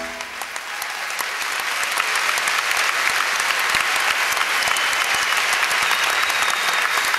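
Large audience applauding. The clapping builds over the first two seconds as the music stops, then holds steady.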